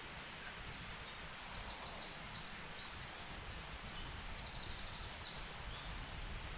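Woodland ambience: a steady low background rumble with faint, high chirps and short trills of small songbirds.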